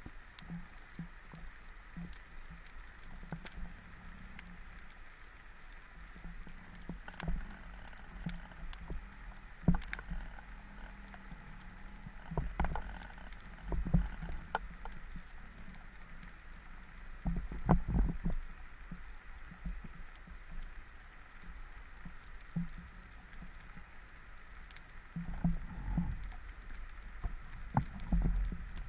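Underwater ambience heard through a camera housing on a speargun: a steady faint hiss with scattered sharp clicks and crackles, and several bursts of low thumping and rumble, strongest about halfway through and near the end, as the gun is moved through the water.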